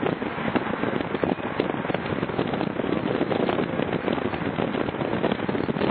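Road and wind noise of a moving car: a dense, rapid crackling over a low rumble.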